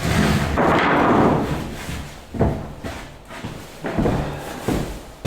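Lengths of wood being handled: a scraping rush in the first second and a half, then several sharp knocks and thuds as pieces strike one another or the ground.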